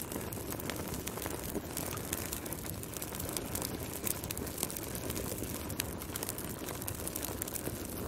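Wood fire burning in a fireplace: frequent sharp crackles and pops over a steady low rush of the flames.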